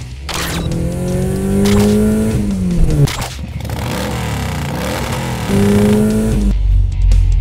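Car engine sound effect revving hard, the pitch climbing and then dropping, twice, with a deep rumble near the end.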